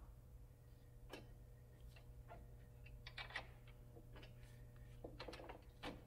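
Faint, scattered metallic clicks and taps as a gloved hand threads a swing arm pivot bolt on a Ural sidecar motorcycle, over a low steady hum.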